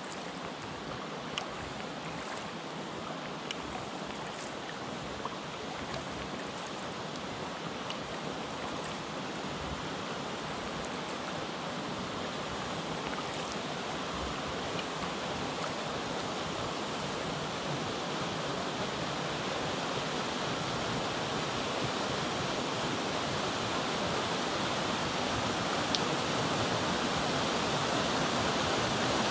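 Steady rush of a waterfall pouring down a cliff into the sea, growing gradually louder as the kayak draws nearer, with a few faint clicks.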